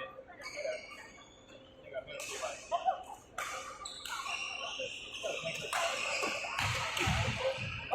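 Badminton play in a gym hall: a few sharp racket hits on the shuttlecock and low thuds of footwork on the court, under faint voices.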